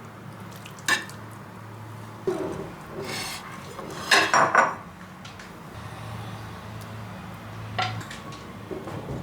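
Dishes and cutlery clattering: a few separate knocks and clinks, with the loudest cluster of clatters about four seconds in, over a low steady hum.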